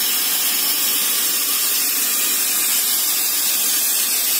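MK5 pneumatic rock drill running on compressed air, giving a loud, steady hiss of air.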